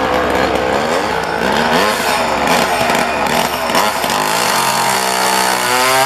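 Two-stroke chainsaw running at a tree limb, its engine pitch rising and falling as it revs and cuts, then holding a steadier note near the end.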